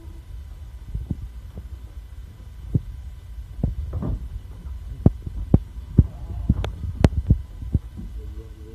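Irregular sharp knocks and taps on the wooden boards of a sheep pen, over a low steady rumble of phone-handling noise. A Garut sheep starts to bleat near the end.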